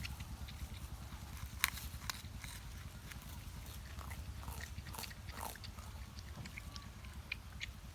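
Porcupine gnawing and chewing bamboo: irregular sharp crunches and clicks, with a few faint short squeaks about halfway through, over a steady low rumble.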